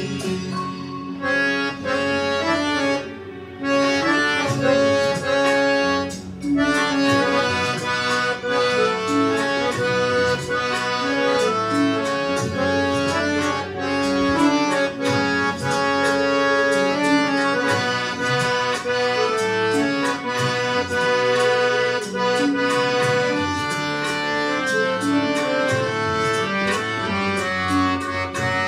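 Hand-pumped Harman harmonium played solo: a melody of held reedy notes over steady low notes, with a couple of brief breaks early on as the bellows are worked.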